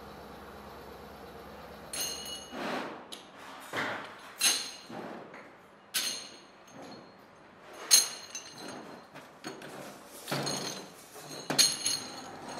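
Metal brake shoe castings clinking and scraping against one another as they are handled and stacked by hand: a string of sharp, ringing metallic clinks at irregular intervals, the loudest about eight seconds in, after a low steady hum at the start.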